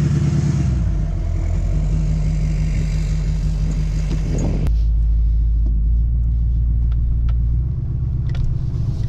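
Pickup truck engine and road noise while driving: a steady low drone. About halfway through, the higher hiss cuts off abruptly and the drone carries on.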